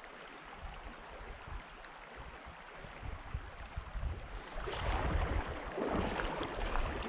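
Stream water running steadily, then about two-thirds of the way in a louder stretch of irregular splashing as a hooked kokanee salmon thrashes at the surface.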